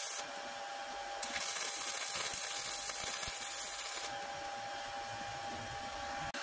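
Electric arc welding on steel: the arc's crackling hiss runs until just after the start, stops for about a second, then runs again for about three seconds and stops.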